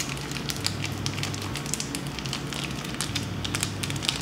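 Crinkling and crackling of a plastic seasoning sachet being squeezed and handled, as a scatter of small irregular ticks over a low steady hum.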